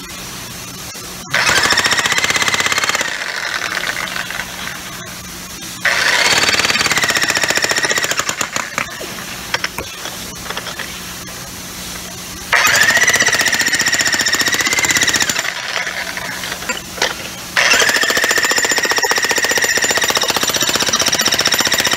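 Harbor Freight Hercules 15-amp electric breaker hammer pounding in four bursts of rapid blows over a high motor whine. The last burst runs longest, and there is quieter clatter between the bursts.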